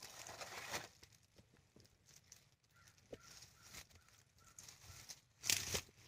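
Sweet pepper plants' leaves and stems rustling as someone brushes and reaches among them, with small handling clicks. The loudest rustle is a short one about five and a half seconds in.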